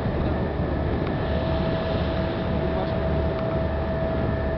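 Ferry's engine running steadily underway: a low drone with a steady whine over it, and a hiss of wind and water.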